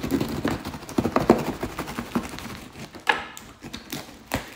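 Utility knife cutting into a cardboard parcel wrapped in packing tape. Irregular scraping and crackling, with sharp knocks of the box being handled.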